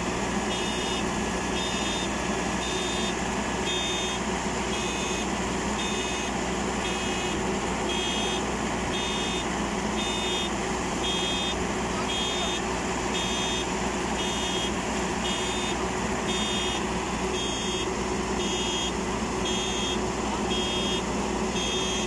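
Mini combine harvester's engine running steadily, with its electronic warning beeper sounding at an even pace over it.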